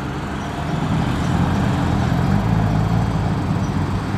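New Holland TM 140 tractor's diesel engine working steadily as it pulls a silage trailer across the field, getting a little louder about a second in.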